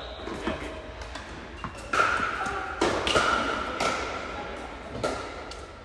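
Tennis ball being struck with a racket and bouncing on the court: several sharp pops about a second apart.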